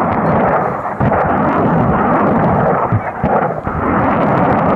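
BM-21 Grad multiple rocket launcher firing a salvo: a continuous rolling rumble of rocket launches running together, dipping briefly twice.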